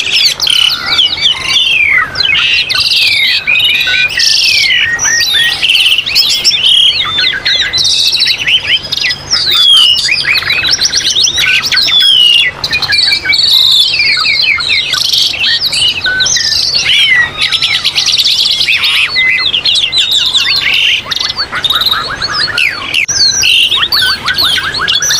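A dense, unbroken chorus of songbirds: many overlapping whistles, chirps and rapid trills. It is a tutor-song (masteran) recording for training a pied starling to sing.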